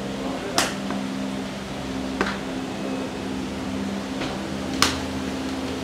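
Steady electric hum of a pedestal fan running, with a few short sharp knocks through it, the two loudest about half a second in and near the end.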